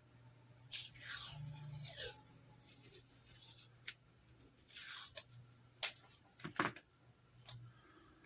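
Adhesive tape being pulled off its roll in a few short rasping pulls and torn, with small sharp clicks and taps from handling the model parts.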